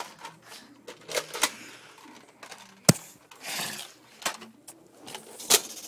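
Scattered sharp clicks and knocks: the loudest about three seconds in, another strong one near the end, and a short hiss between them.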